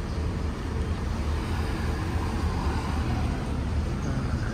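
Steady low rumble of a vehicle engine idling.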